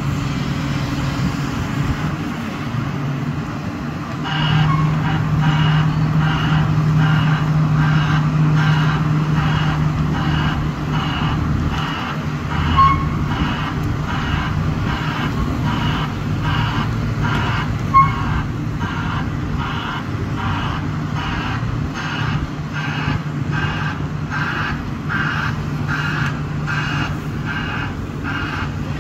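Heavy diesel engine of a Komatsu PC360LC excavator running steadily, getting louder a few seconds in, with a reversing alarm beeping about twice a second from then on. Two sharp metallic knocks cut through, a few seconds apart.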